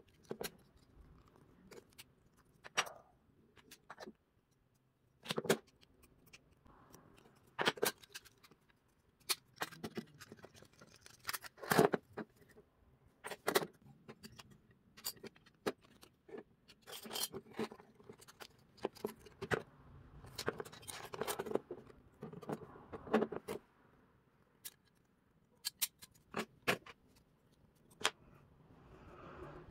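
Irregular sharp clicks, taps and short scrapes of small metal and plastic pieces being handled, from a 1:24 die-cast model car being worked on by hand.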